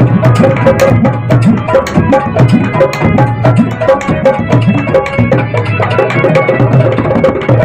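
Punjabi folk music: dhol drumming in a rapid, continuous rhythm under a harmonium's held melody notes.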